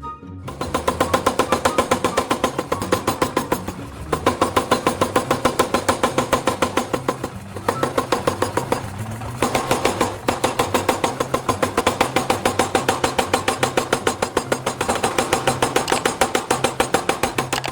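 A machine's fast, regular clatter, about four strokes a second, breaking off briefly twice, over background music.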